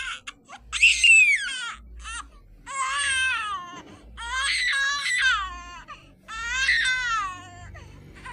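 Crying sound effect: a run of about four high-pitched wailing cries, each about a second long and dropping in pitch at its end, like an infant's cry.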